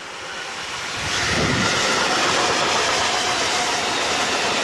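Freight train hauled by a Class 186 TRAXX electric locomotive passing close by at speed: the sound grows as it approaches, swells sharply as the locomotive goes past about a second in, then holds as a steady loud rush of tank wagons rolling by.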